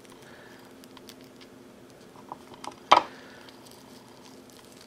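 Faint crumbling and patter of a fried, breadcrumb-coated mac and cheese bite being pulled apart by hand, with one short sharp click about three seconds in, over a low steady hum.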